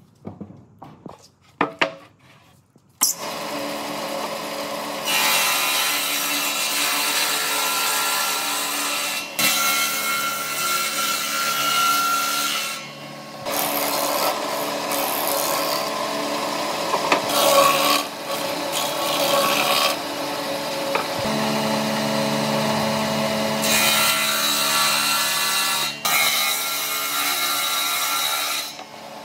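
A few wooden knocks, then an electric power tool running steadily against wood from about three seconds in. It pauses briefly three times and stops near the end.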